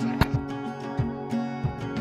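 Background music carried by plucked string notes.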